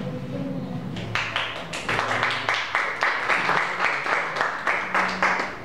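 A small audience clapping, starting about a second in, with the claps coming evenly at about three or four a second.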